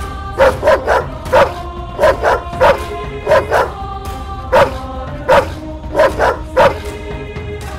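A large dog barking loudly, about a dozen barks mostly in quick runs of two or three, over background music with sustained tones.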